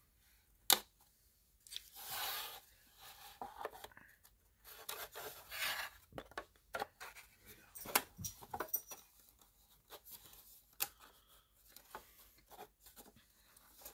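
Thin wood-grain panels of a flat-pack desk organizer being handled and slotted together: board scraping and rubbing against board, broken by sharp clicks and knocks, a loud one about a second in.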